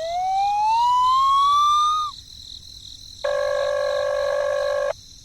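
Cartoon-style sound effects: a pitched whistle glides upward for about two seconds and cuts off. After a short gap comes a steady, flat buzzing tone lasting about a second and a half.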